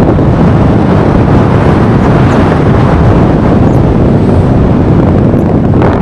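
Strong wind buffeting the microphone in paragliding flight: a loud, steady rushing roar, heaviest in the low end.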